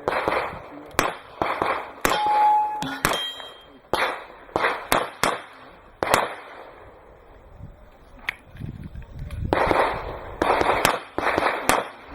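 Handgun fire in a practical-shooting stage: strings of quick shots with echo, and a steel target ringing with a clang after a hit about two seconds in. There is a lull of a couple of seconds in the middle, then rapid shots resume near the end.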